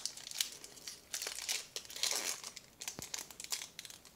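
Foil wrapper of a Magic: The Gathering Double Masters booster pack crinkling and crackling irregularly as it is handled to be opened, with one sharper snap about three seconds in.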